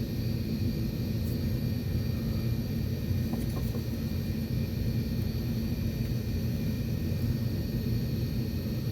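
Steady low background rumble with faint constant high whines, as from a fan or other machine running, unchanged throughout. A couple of faint clicks about three and a half seconds in.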